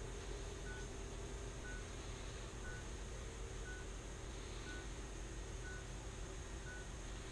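A short, high electronic beep repeating about once a second, eight times, over a low steady hum.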